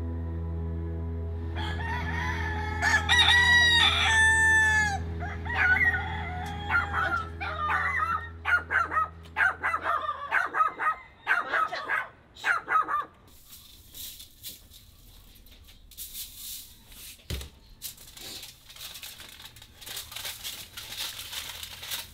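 Roosters crowing again and again, several calls overlapping, from about two seconds in until about halfway through, over a low steady music drone that fades out. The second half holds quieter scattered rustling and handling noises.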